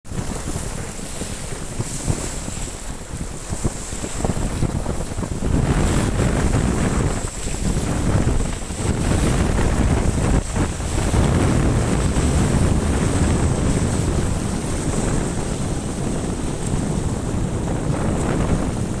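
Wind buffeting the microphone: a steady rushing noise with a fluctuating low rumble, growing louder about five seconds in.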